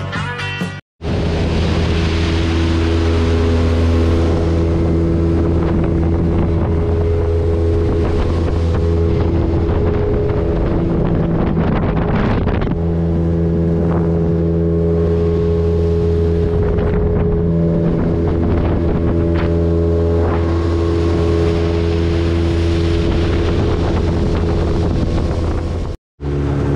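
Small motorboat under way at speed: its outboard engine runs with a steady note, over the rush of water past the hull and wind buffeting the microphone.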